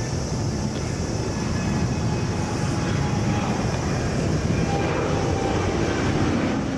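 Jet airliner flying overhead: a steady jet-engine rumble that slowly grows louder, with a faint whine on top.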